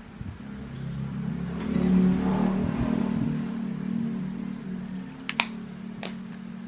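A low, steady motor drone that swells to its loudest about two seconds in and then eases off, with a few sharp clicks near the end.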